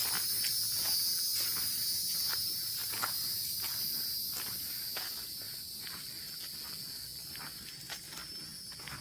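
Steady high-pitched insect chorus, fading over the last few seconds, with footsteps on a forest trail at about two steps a second.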